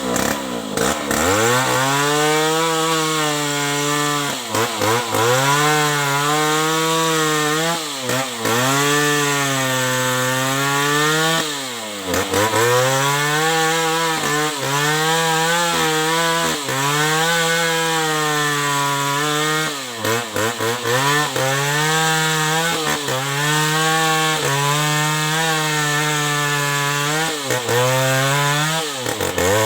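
New West 070 two-stroke chainsaw cutting durian wood at high revs. Its engine pitch sags and recovers every couple of seconds as the chain is loaded in the cut.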